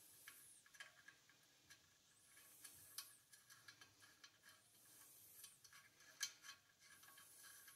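Very quiet, faint small ticks and clicks as a T-MAP sensor is fitted by hand to an aluminium intercooler pipe and its small M6 bolt is threaded in, with a few soft rubbing swells.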